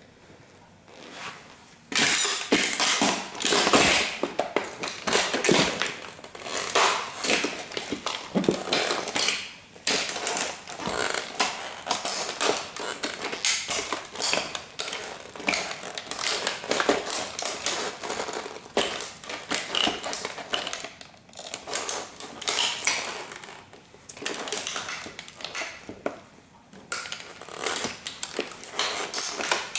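Bugatti model toy car creaking, cracking and crunching under the weight of Dr. Martens Jadon platform boots standing and stamping on it. It is a dense run of clicks and snaps that starts about two seconds in, with short lulls along the way.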